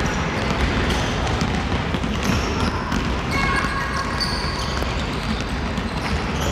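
Many basketballs being dribbled at once by children on a gym floor: a dense, irregular patter of overlapping bounces at a steady level.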